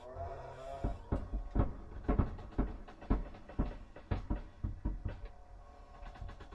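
Spooky sound effect: a dozen or so irregular heavy knocks, about two a second, over a low rumble and a faint eerie drone, the kind of ghostly knocking used in haunting scenes.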